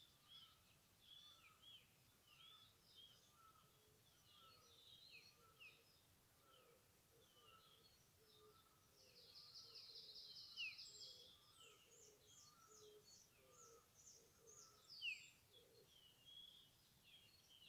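Faint birdsong from small songbirds: a steady run of short chirps and down-slurred notes, with a buzzy trill about halfway through and two sharper, louder notes, one near the middle and one toward the end.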